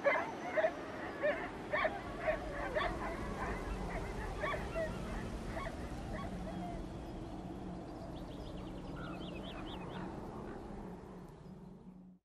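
A pack of wolves whining and yipping in short high calls, several a second, as they crowd together in greeting; the calls thin out after about five seconds. A low steady drone runs underneath and fades out at the end.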